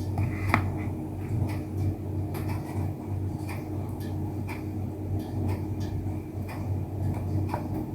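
Scattered light clicks and scrapes of a utensil spreading cream over a graham layer in a dish, over a steady low hum.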